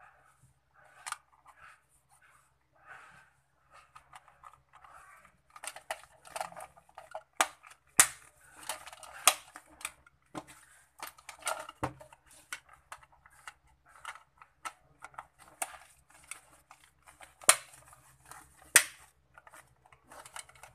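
Irregular plastic clicks, taps and rustling as a Rexus gaming headset is handled and its ear pads are fitted back onto the earcups, with a few sharper, louder clicks midway and near the end.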